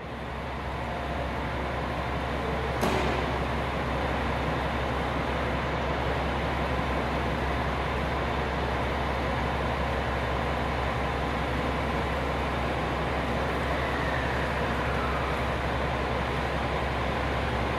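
Steady drone of a station platform with a 521 series electric train standing at it, waiting to depart. A sharp knock comes about three seconds in, and a faint falling whine follows later on.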